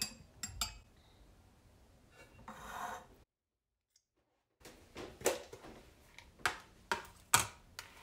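A metal fork clinks against a small ceramic bowl, then a soft rustle swells for about a second. After a second of dead silence comes a run of sharp clicks and knocks from things being handled on a wooden tabletop.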